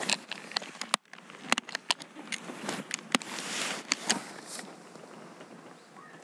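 Irregular sharp clicks and rustling over a steady hiss. The clicks stop after about four and a half seconds, leaving a fainter hiss.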